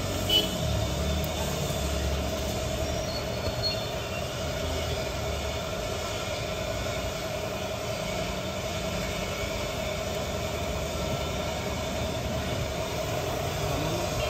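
Steady machine noise: a constant mid-pitched whine over a low rumble, unchanging throughout.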